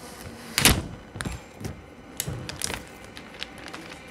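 An iPad in its plastic protective wrap being handled and turned over. A single sharp knock comes just over half a second in, followed by scattered light crinkles and taps of the plastic film.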